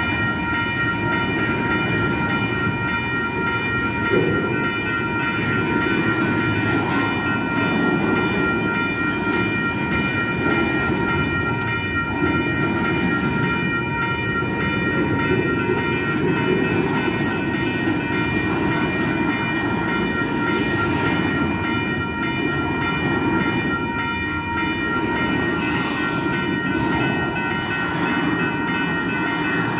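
Double-stack intermodal container freight cars rolling steadily past, wheels rumbling on the rails, with a steady high ringing tone running over the rumble.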